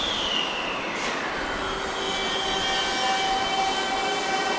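Toei 5300 series train's GTO-VVVF inverter whining as the train starts to pull away: a tone falling in pitch over the first two seconds, then a chord of steady high whines.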